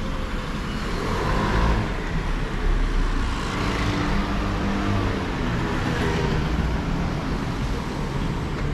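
Street traffic: a motor vehicle running close by with a steady engine hum and a low rumble of road noise.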